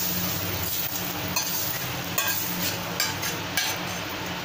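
Hot oil tempering of mustard seeds, urad dal, dried red chillies and asafoetida sizzling as it is tipped from a small steel pan into cooked spinach and dal in a clay pot. A steel ladle clinks against the pan several times.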